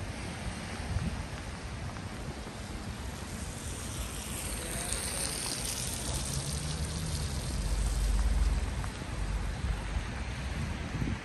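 Steady rain hissing on a city street, with a low rumble swelling to a peak about eight seconds in and fading again, as of a vehicle passing on the wet road.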